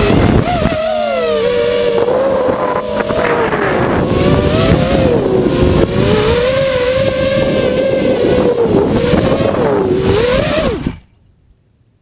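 Eachine Racer 250 quadcopter's brushless motors whining close to the onboard camera, the pitch wavering up and down with the throttle over a rush of wind. About eleven seconds in the motors stop suddenly, the quad at rest in the grass.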